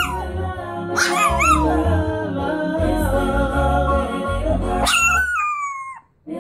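A Chihuahua puppy howling along to a reggae song: a short wavering howl about a second in, and a longer howl falling in pitch near the end as the music briefly drops out.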